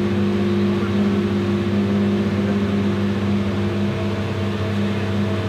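A motor running steadily at one even pitch.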